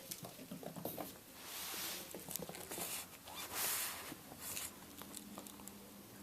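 Five-week-old RagaMuffin kittens scampering and playing: quick light pattering of small paws with rustling swishes, louder twice in the middle.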